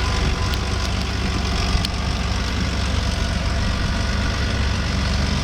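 Diesel tractor engine running steadily at an even pace, with a couple of faint clicks about half a second and two seconds in.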